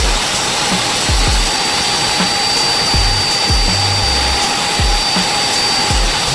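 Milwaukee cordless belt sander running steadily, a continuous whine and hiss, under background music with a regular thumping bass beat.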